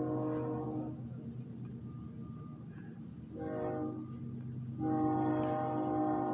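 Train horn sounding a chord of several notes: a blast that ends about a second in, a short blast around three and a half seconds in, then a long blast from about five seconds in, heard from inside a parked vehicle.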